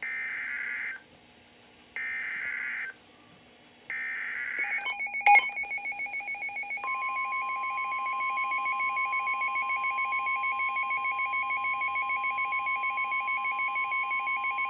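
NOAA Weather Radio Specific Area Message Encoding data header: three one-second bursts of buzzy warbling digital tones a second apart, encoding a severe thunderstorm warning. After the third burst a rapidly pulsing beep alarm starts, and about seven seconds in the steady 1050 Hz weather radio warning alarm tone comes in under it.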